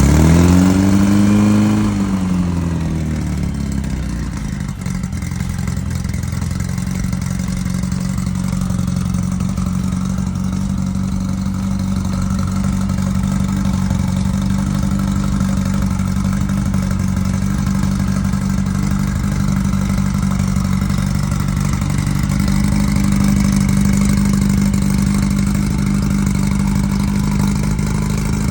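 Newly installed 1776cc air-cooled VW flat-four engine in a Beetle on its first run, revved once briefly, then settling to a steady idle.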